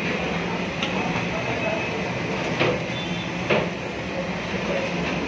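A steady low rumble of kitchen noise, with a few short sharp clinks of a large metal ladle working against a big biryani cooking pot, about one, two and a half and three and a half seconds in.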